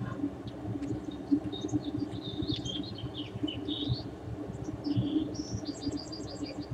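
Birds chirping: quick repeated high trills with short varied calls between them, over a steady low background.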